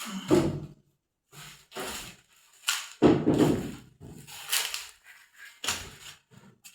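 A series of scraping and knocking handling sounds, about five in all, as a heavy object is lifted and set in place; the loudest comes about halfway through.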